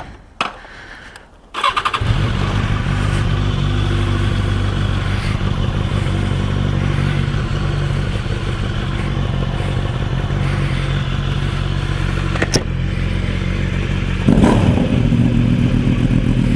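Sports motorcycle engine cranked on the electric starter, catching about two seconds in and then idling steadily. Near the end it is revved up and gets louder.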